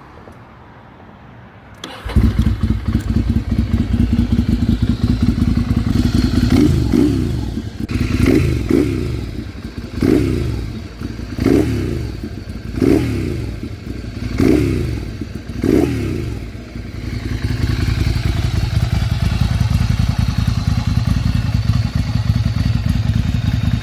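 Ducati Monster 696's 90-degree L-twin starting up about two seconds in and idling, then blipped to rev several times in quick succession before settling back to a steady idle.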